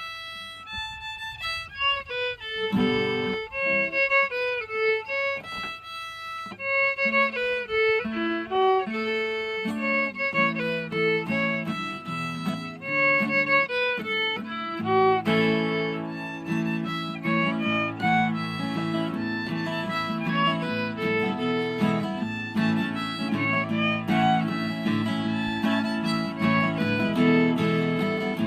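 Fiddle tune played as a lively single melody. Guitar accompaniment joins about ten seconds in and grows fuller from about fifteen seconds.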